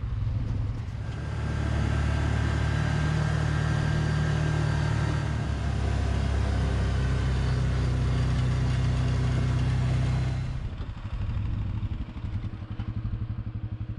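Can-Am side-by-side's engine running steadily under way, heard from inside the cab. About ten and a half seconds in it cuts off sharply to a quieter engine idling with a rapid pulsing beat.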